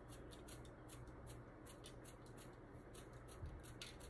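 Faint, quick and regular rattling of a plastic spice shaker of dried basil being shaken over a pan of salmon.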